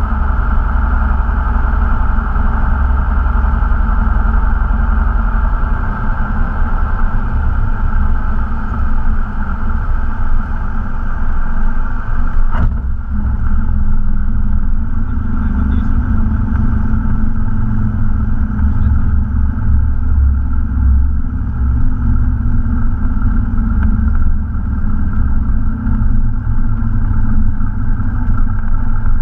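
Cessna 172's piston engine and propeller running at low power during landing, heard inside the cabin with a steady low drone and airflow noise. A single sharp knock comes a little before halfway, after which the higher rushing noise fades.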